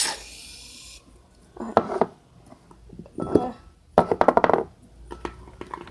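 Aerosol can of shaving cream hissing for about a second as foam is sprayed out, then three short bursts of rapid crackling, the loudest about four seconds in.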